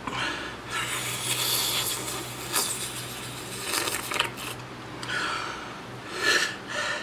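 A man breathing hard in and out through his mouth, a run of several hissing breaths with short gaps, as he tries to cool a mouth burning from habanero pepper.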